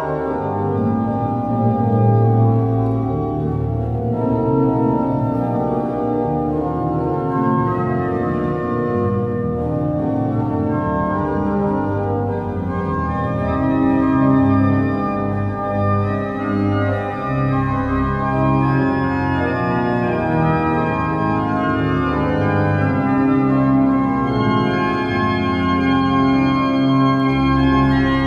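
Church pipe organ playing a chorale fantasia in full, sustained chords, with a deep pedal bass line coming in just after the start.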